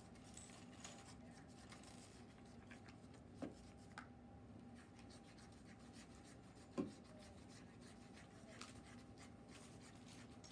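Faint scraping and rubbing of glue-based slime being stirred in plastic bowls, with a few soft knocks, the loudest about seven seconds in, over a steady low room hum.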